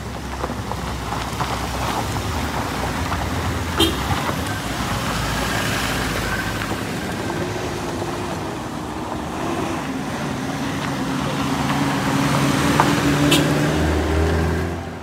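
Road traffic with a truck engine running; its pitch slowly rises and it grows louder through the second half. Two sharp clicks come about 4 and 13 seconds in.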